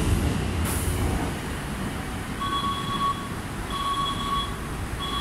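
Train doors sliding shut with a short hiss about a second in, over the low hum of a standing electric train. From about halfway in, platform screen door warning beeps sound: a two-note electronic tone pulsing on and off about every 1.3 seconds.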